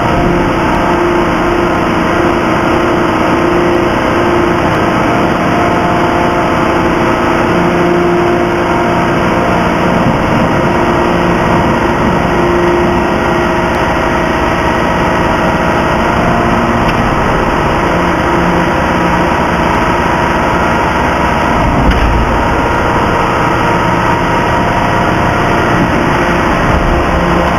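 Heavy forging-plant machinery around a hydraulic forging press running: a loud, steady drone with several held humming tones, and one sharp knock late on.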